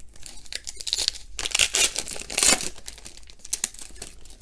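Foil wrapper of a Donruss Optic baseball card pack being torn open and crinkled by hand, loudest in the middle, with fainter rustles and clicks near the end.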